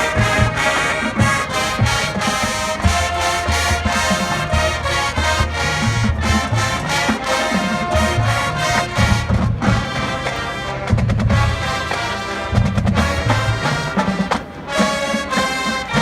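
Marching band playing its competition show: brass carrying the melody over drums and percussion, with a dip in level about fourteen seconds in.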